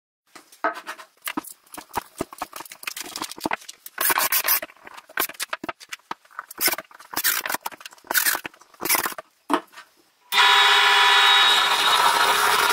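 Scattered clicks, knocks and short scrapes of parts being handled and fitted together. About ten seconds in, a wood lathe cuts in with a loud steady noise: a hand-held turning chisel cutting a spinning blank of resin and wood.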